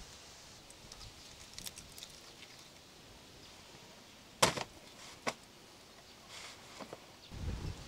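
Faint scattered ticks, then a sharp slap about halfway and a smaller knock just after, as a rack of raw beef ribs is handled and laid on a cardboard-covered wooden chopping stump. A dull low thud comes near the end.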